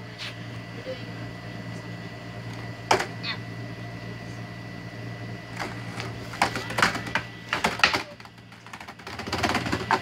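Skateboard on brick pavers: a sharp clack about three seconds in, a run of clattering clicks from about six to eight seconds, then rolling wheel noise that swells near the end, over a steady low hum.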